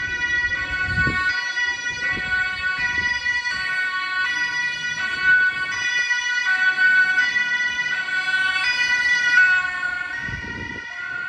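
Emergency vehicle's two-tone siren, stepping back and forth between two pitches about every three-quarters of a second. It gets louder, then fades over the last couple of seconds.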